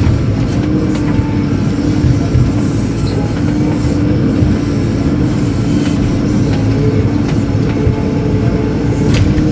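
JCB 4CX backhoe loader's diesel engine running steadily under load, with a constant whine over the low rumble and a few faint short clicks.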